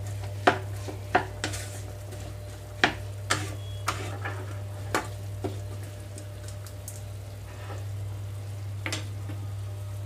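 Wooden spatula stirring diced bottle gourd in a nonstick pan, knocking and scraping against the pan a dozen or so times in the first half, then a lone knock near the end. Under it the pieces fry with a light sizzle, and a steady low hum runs throughout.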